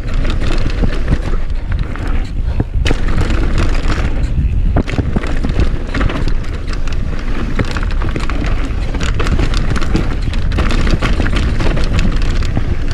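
Downhill mountain bike ridden hard over rough trail, picked up by an action camera: a constant rumble of wind on the microphone and tyres on dirt, with dense rapid clatter of chain, frame and suspension knocking over the bumps.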